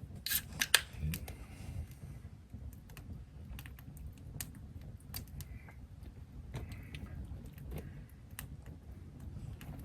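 Scattered light clicks and taps of small objects being handled, a few sharper ones in the first second, over a steady low hum.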